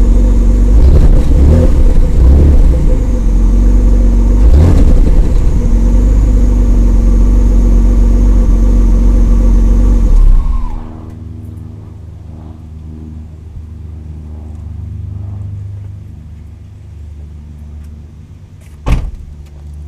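A 1994 Mitsubishi Diamante's V6 engine running at idle and shaking with random misfires, which new spark plugs, plug wires and a fuel filter have not cured. The engine runs loud and uneven at first. About halfway through, the sound drops sharply and a high tone slides down, and the engine carries on more quietly, with a single sharp knock near the end.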